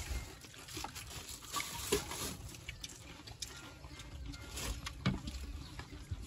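Roast duck being pulled apart by hand: scattered small clicks and wet crackles of skin and meat tearing off the bone.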